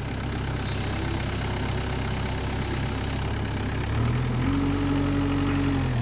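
Diesel engine of a farm loader running steadily while it handles a load. Its note steps up about four seconds in and holds there.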